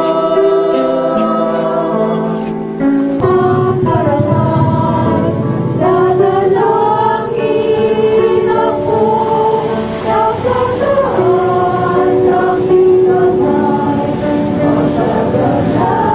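Church choir singing a slow hymn in long held notes; the sound grows fuller and lower about three seconds in.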